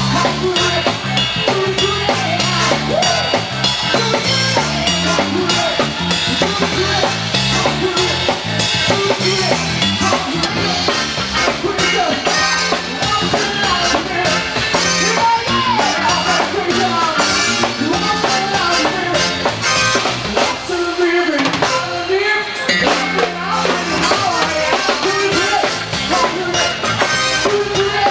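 Live band playing, with a busy drum kit beat and a moving electric bass line. It thins out briefly around two-thirds of the way through.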